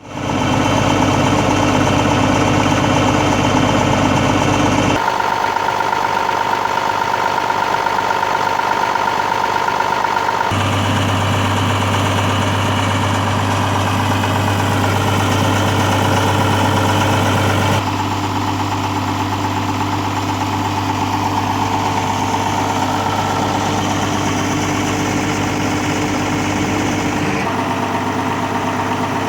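Diesel engine of a 1998 John Deere 7405 tractor running steadily, its tone changing abruptly four times and holding steady in between.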